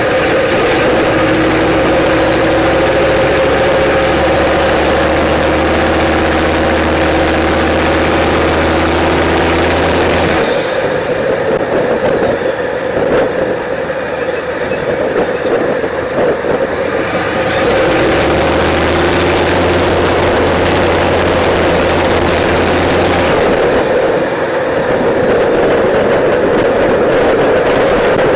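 Turbocharged 6.5 L Detroit Diesel V8 in a GMT400 K3500 dually running through a straight-pipe exhaust while driving. Twice, about ten seconds in and again near the end, the high turbo whistle falls away in pitch and the engine note drops, as if the throttle is let off, before it pulls again.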